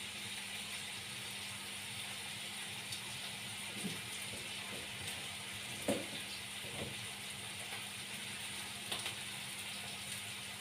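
Soft knocks and handling noise of tomatoes being worked by hand in a plastic bowl, the loudest knock about six seconds in, over a steady background hiss and low hum.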